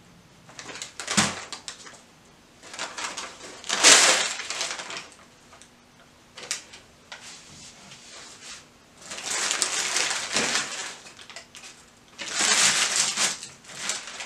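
McDonald's paper takeout bag and cheeseburger wrapper rustling and crinkling as they are torn open and unfolded, in several bursts, the loudest about four seconds in.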